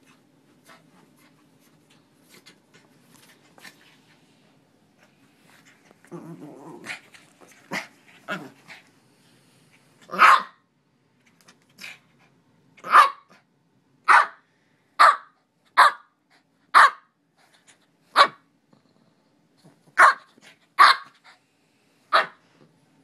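Small white fluffy dog growling low while play-fighting, then barking in about ten short, sharp barks roughly a second apart.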